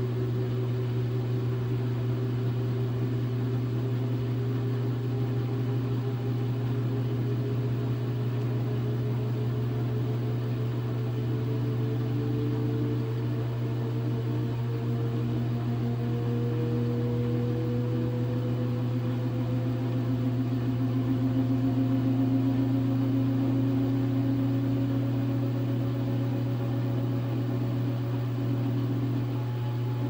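Direct-drive top-load washing machine spinning its drum: a steady motor hum with whining tones that climb slowly in pitch throughout.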